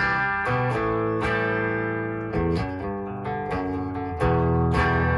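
Electric guitar played through a hand-wired Marshall 2204 (JCM800-type) tube amp head: a run of struck chords and notes that ring out, with a louder chord hit about four seconds in and left to sustain.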